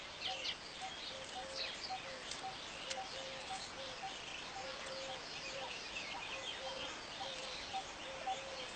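Many small birds chirping and twittering, typical of a weaverbird colony, over a low two-note call that repeats steadily a couple of times a second.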